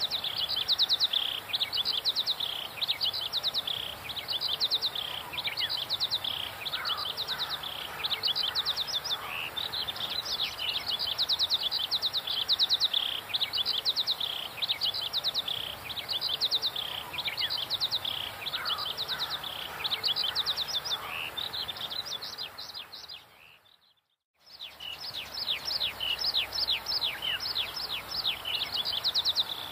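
Birds chirping in the trees: a high, rapid run of short falling notes repeated about once a second. It drops out briefly near the end and comes back.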